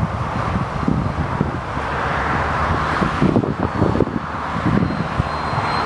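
Wind buffeting the microphone in irregular low thumps over a steady outdoor rumble of passing vehicles.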